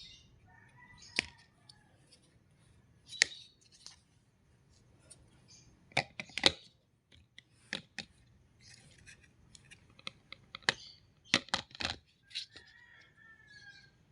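Stackable glass jars being handled, giving a dozen or so sharp, irregular clicks, taps and knocks. A bird chirps faintly in the background near the start and again near the end.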